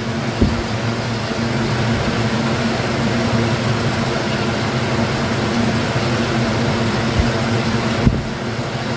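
Steady mechanical hum with a low drone, dropping slightly about eight seconds in.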